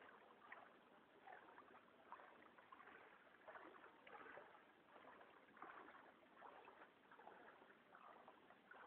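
Floodwater sloshing and splashing faintly and unevenly as someone moves through it.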